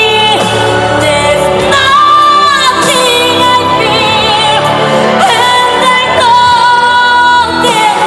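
A woman singing a pop song live over loud amplified accompaniment, holding long notes with vibrato.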